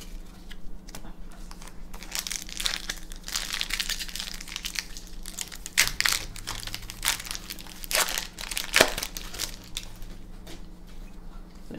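Foil wrapper of a Magic: The Gathering booster pack torn open and crumpled in the hands: a run of crinkling crackles, loudest around six and eight seconds in.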